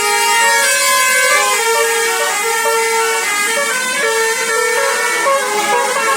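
Indonesian tour bus's 'basuri' telolet musical horn playing a melody of held notes that step up and down in pitch.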